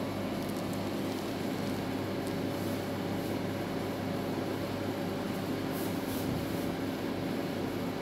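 Samsung microwave oven running: a steady, even hum while it heats a bowl of water.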